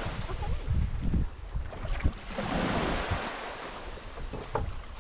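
Wind buffeting the microphone in a gusty low rumble, over small waves washing onto a sandy shore, with one wave surging up about halfway through.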